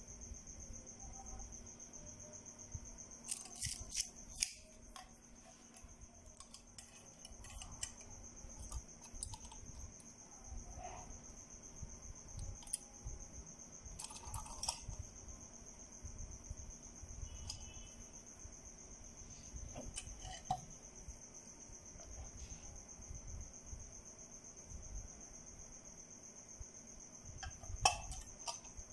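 A cricket trilling steadily on one high, finely pulsed note. Over it come a few short clicks and knocks as the fog lamps and their metal brackets are handled; the loudest are a little after four seconds in and near the end.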